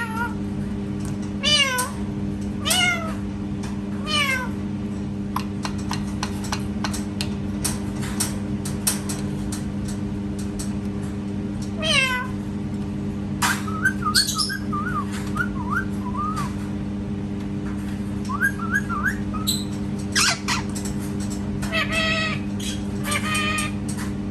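Parrot mimicking a cat: several separate meows that slide down in pitch, mixed with short warbling whistles and clicks. A steady low hum runs underneath.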